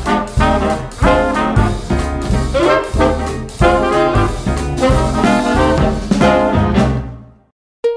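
Upbeat swing-style background music with brass and a steady beat, fading out about a second before the end. After a brief gap, a new plucked-string tune starts right at the end.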